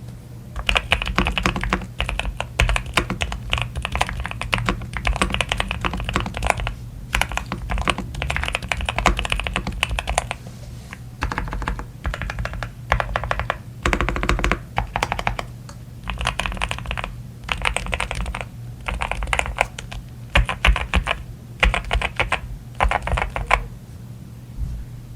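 Typing on a GMK67 mechanical keyboard fitted with stock Gateron Oil King linear switches and GMK Pulse keycaps: a thocky clatter of key presses in runs of a second or a few seconds, with short pauses between. The typing starts just under a second in and stops shortly before the end, over a steady low hum.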